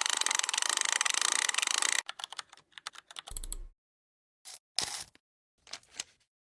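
Computer keyboard typing sound effect: about two seconds of fast, continuous keystrokes, then a few scattered short bursts of keys, with a brief low thud around three seconds in.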